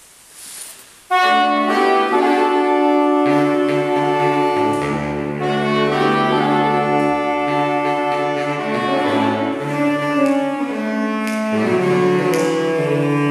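Saxophone quartet of soprano, alto, tenor and baritone saxophones coming in together about a second in, playing sustained chords. Low bass notes join about three seconds in.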